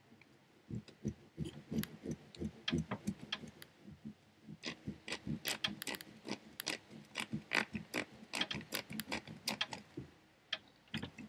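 Knife cutting in a pumpkin, worked back and forth in quick, rhythmic strokes through the rind and flesh. It starts under a second in and grows louder about halfway through.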